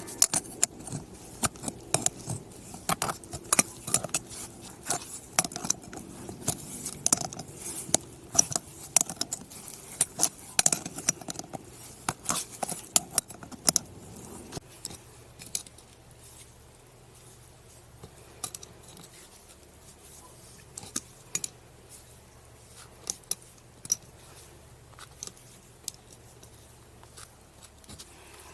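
Many small sharp clicks and clinks like metal objects knocking together, dense for about the first half, then sparser.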